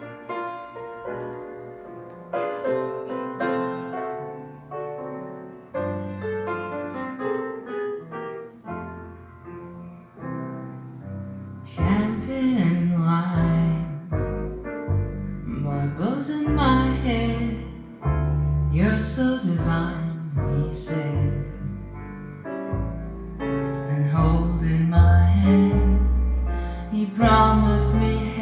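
Recorded pop ballad playing over hi-fi loudspeakers: a piano intro, joined about twelve seconds in by deep bass notes and percussion.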